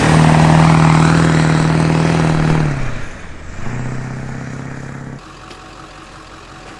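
A Ford E450 school bus's 7.3-litre turbodiesel V8 is driven hard past the camera, running loud and steady. It is fitted, by the owner's tongue-in-cheek denial, with a programmer and an aftermarket exhaust. About three seconds in the engine note falls away, then picks up again more weakly, and it cuts off suddenly about five seconds in, leaving a quieter steady hiss.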